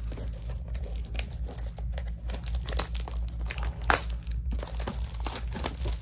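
Clear plastic wrapping on a trading-card box crinkling and tearing as it is unwrapped by hand, in irregular crackles.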